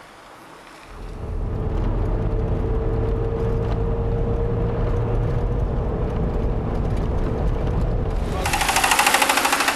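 Vehicle driving on a road, heard from inside the cab: a steady low engine and road rumble with a hum, starting about a second in after faint wind noise. Near the end it cuts abruptly to a loud, rapid rattle.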